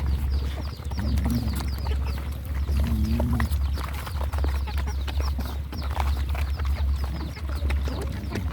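Dogs eating, with dense quick chewing and lapping clicks throughout over a steady low hum. Many short, high, falling chirps run through it.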